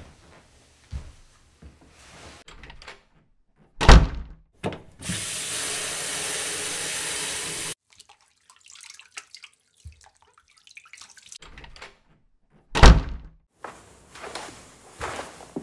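A tap running into a sink for about three seconds, then shut off sharply. Loud thumps come just before the water starts and again near the end.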